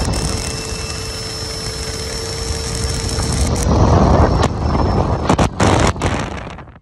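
Electric ducted fan of an RC jet running on a stand: a steady whine at low throttle. About three and a half seconds in it is throttled up to a louder rush of air, at most half throttle, then spools down and stops near the end.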